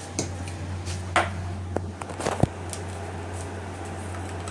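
A few short knocks and clicks of things being handled, spread over the first two and a half seconds, over a steady low hum.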